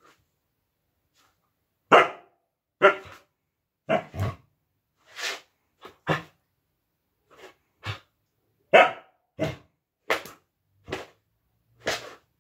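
Siberian husky giving short play barks, about one a second, beginning about two seconds in.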